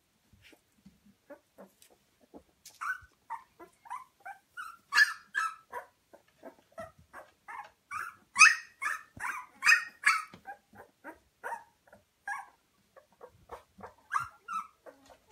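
Two-week-old puppies squeaking and whimpering in many short, high cries, with louder runs of cries about a third of the way in and again just past the middle.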